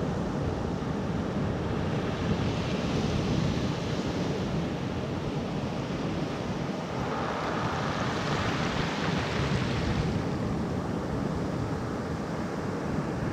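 Small ocean waves breaking and washing up over a pebble beach, the foaming hiss swelling over the middle and easing off about ten seconds in, over a steady low rumble.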